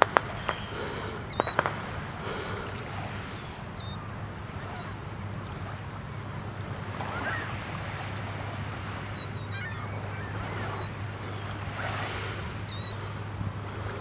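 A flock of gulls calling, many short high squealing calls scattered over one another, over a steady low hum and open-air noise. A few sharp clicks come in the first two seconds.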